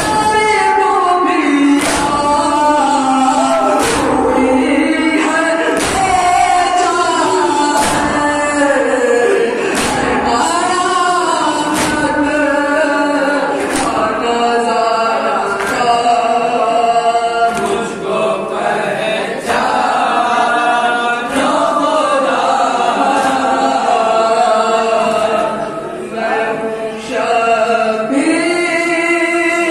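Men's voices chanting a noha (Shia lament) together, with sharp chest-beating (matam) strikes landing in unison about every two seconds.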